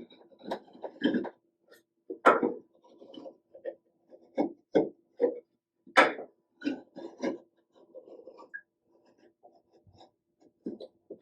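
Wheel marking gauge scratching along a wooden board in many short, uneven strokes as it scribes a line, mixed with light knocks of the board and gauge being handled.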